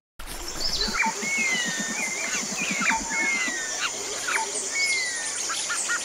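Forest ambience: several birds calling with repeated falling whistles and sharp down-sweeping notes over a steady high hiss, with a fast low pulsing in the first half. It cuts in suddenly, and near the end a quick run of short repeated notes joins it.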